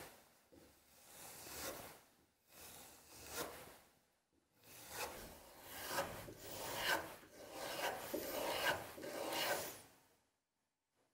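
A small steel knife blade being stropped on a leather strop: a series of scraping rub strokes, slow and spaced at first, then quicker, stopping shortly before the end.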